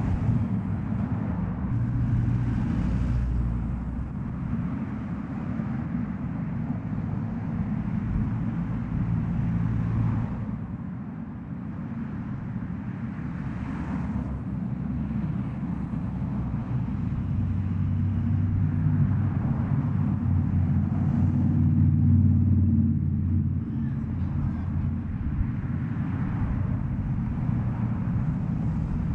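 Steady low rumble with no speech, growing louder from about two-thirds of the way in, with soft higher swells every few seconds.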